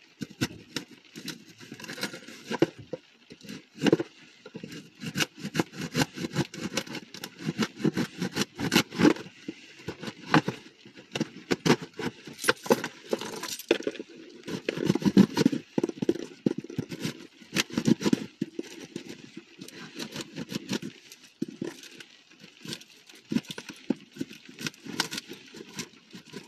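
A package being opened by hand: irregular rustling and scraping of the box and its wrapping, with many short sharp clicks and crackles.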